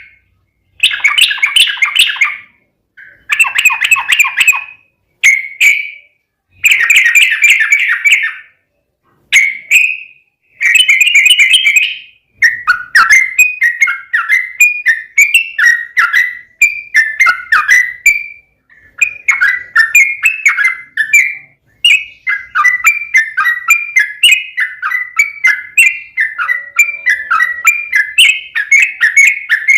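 Yellow-vented bulbul (trucukan) singing: bubbly, warbling phrases, at first in separate bursts of a second or two with short pauses between them. Before halfway through, they turn into a long, nearly unbroken run of quick rolling notes.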